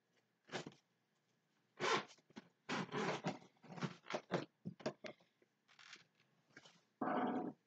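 A string of short, irregular rustling and scraping noises, like cloth or objects being shifted by someone moving about close to the microphone, with a longer, louder one near the end.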